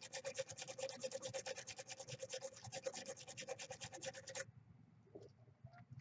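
Small wire brush scrubbing quickly back and forth on a screw terminal in an air conditioner's outdoor unit, cleaning up the electrical contact. The fast, even strokes stop suddenly about four and a half seconds in.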